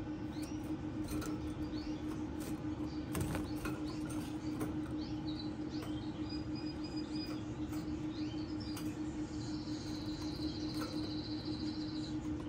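Yellow frosted canaries chirping with short calls, and near the end one gives a fast, even trill lasting about two and a half seconds. A steady low hum runs underneath, with a few light clicks.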